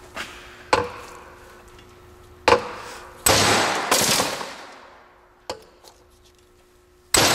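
A handheld valve keeper tool is being pushed down on a V8 cylinder head's valve spring to free the keepers. It makes a series of sharp metallic snaps and clacks. The loudest come a little past three seconds and near the end, and each rings on and dies away slowly.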